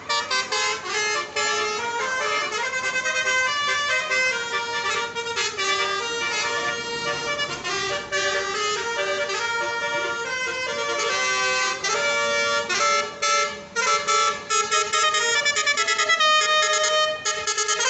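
Bus 'telolet' multi-tone basuri horn playing a melody, a quick run of short notes mixed with longer held tones at changing pitches.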